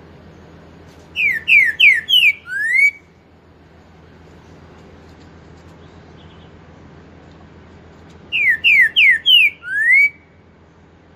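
Caged green-winged saltator (trinca-ferro) singing its song twice, about seven seconds apart. Each phrase is four quick falling whistles followed by a longer rising whistle, the 'four-note with boi' song.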